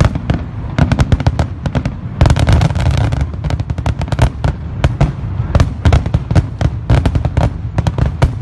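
Fireworks going off in rapid succession: a dense run of sharp bangs and crackles over a low rumble, heaviest about two to three seconds in.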